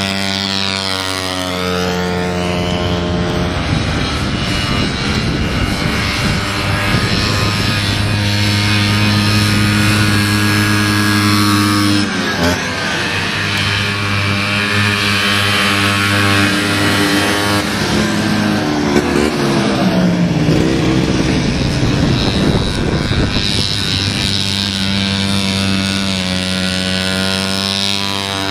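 Vintage two-stroke racing snowmobiles running at speed and passing close by. The engine pitch drops as a sled goes past near the start and swings down and up again about twenty seconds in, with an abrupt cut about twelve seconds in.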